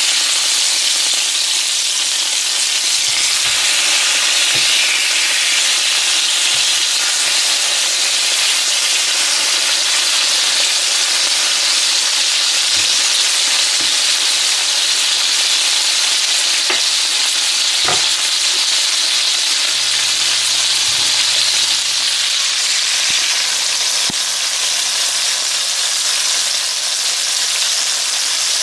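Breaded fish fillets frying in shallow oil in a nonstick skillet: a steady, loud sizzle, with a few light clicks of the spatula against the pan, the sharpest about eighteen seconds in.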